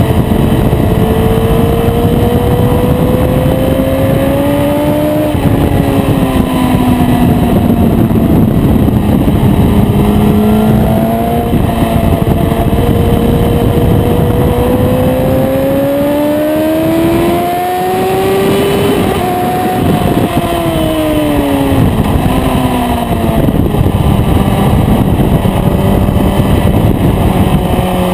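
Aprilia RSV4 sport bike's V4 engine at racing speed on track, its revs climbing slowly and then dropping sharply about three times before holding lower near the end, over constant wind rush.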